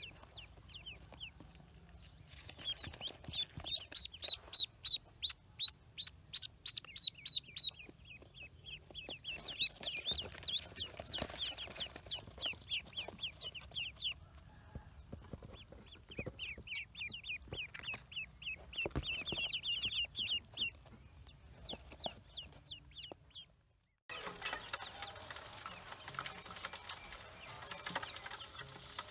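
Ducklings peeping: rapid runs of short, high, downward-sliding peeps, loudest a few seconds in. About 24 seconds in, a denser chorus of many ducklings peeping at once takes over.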